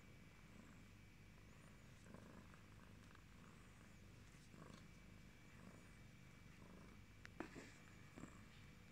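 Cream British Shorthair cat purring softly, a steady low rumble, with a few faint clicks near the end.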